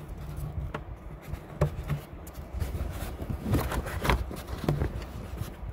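Rustling and scraping of a vehicle's floor carpet being pushed back down over the floor pan, with a few short knocks and clicks from handling.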